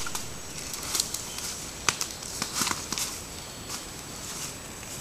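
Moose walking over dry leaf litter and twigs: irregular rustling steps and sharp twig crackles underfoot.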